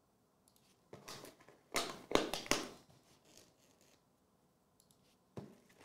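Hands working at the plastic shrink wrap on a trading card box, a run of crinkling, scratching noises about a second in, loudest around two seconds, with another short pair near the end.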